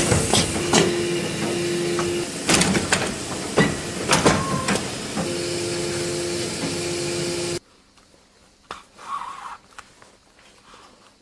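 A motor-driven machine running with scraping and knocking, a steady hum under it, then switched off suddenly about seven and a half seconds in, leaving only a few faint handling sounds.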